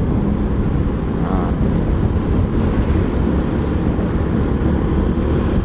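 Wind rushing over the microphone of a moving motorcycle, with the engine and road noise running steadily beneath it.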